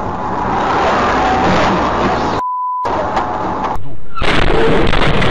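Loud, distorted road and engine noise from a dashcam recording, interrupted partway through by a short 1 kHz censor bleep. Near the end it cuts to another dashcam recording's loud, noisy sound.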